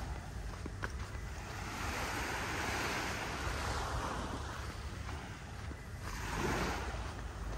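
Gulf surf breaking and washing up the beach, swelling about two seconds in and again near the end, with wind rumbling on the microphone.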